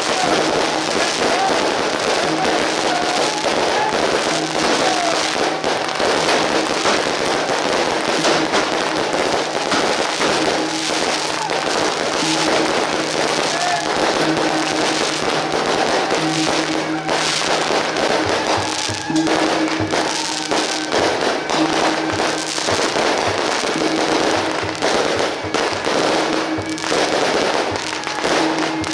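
Firecracker strings going off in a dense, unbroken crackle, with music underneath carrying steady low tones that come and go.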